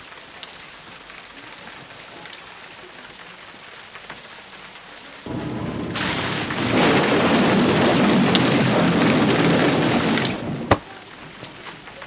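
Rain: a faint steady hiss that swells a little before halfway into a loud downpour with a low rumble, like a thunderstorm. It drops back abruptly to the faint hiss, and a single sharp click follows.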